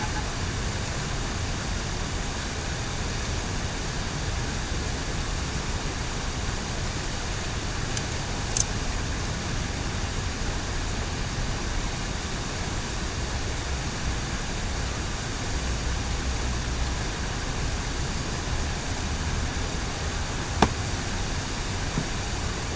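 Steady background rumble and hiss, with a few short sharp clicks about a third of the way in and again near the end.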